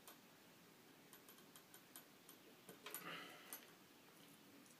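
Faint small metallic clicks and handling sounds as an AR-15 extractor and its spring are fitted back into the bolt, with a slightly louder cluster of clicks about three seconds in.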